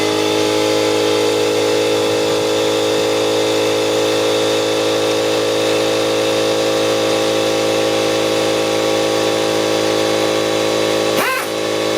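A small motor running at a steady, unchanging pitch, with a brief dip and recovery about eleven seconds in.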